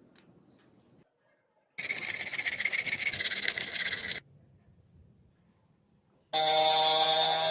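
A tool rasping harshly against plastic, as when PVC pipe is cut or filed, for about two seconds, cut off abruptly. Near the end a loud, steady set of sustained tones starts suddenly.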